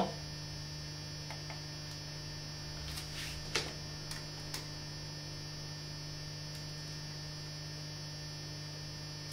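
Steady low electrical hum with a few short faint clicks about three to four and a half seconds in, like a computer mouse being clicked.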